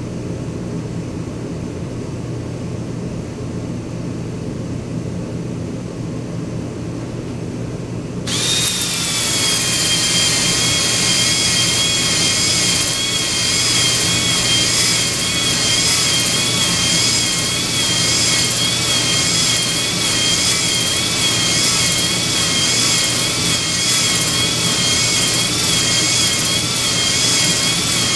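A steady low hum, then about eight seconds in an electric drill starts and runs at steady speed with a high whine that wavers slightly, spinning a 240-grit Flex-Hone ball brush in and out of a cast-iron Triumph Spitfire cylinder to hone a cross-hatch into the bore.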